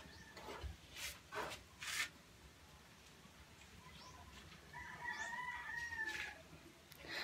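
A rooster crowing once, one drawn-out call lasting about a second and a half, beginning near the middle. A few light knocks come in the first two seconds.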